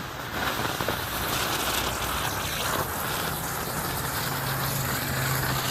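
Hula hoop spinner firework burning with a steady, rushing hiss, which starts just after the fuse takes, over a low steady hum.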